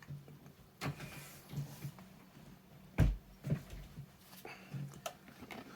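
Handling noises: a few sharp knocks and clicks, the loudest a dull knock about three seconds in.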